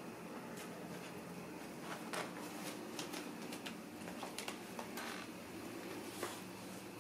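Irregular light crackling and rustling of dried flower petals and a wicker basket as kittens paw and push through them, several small crackles a second.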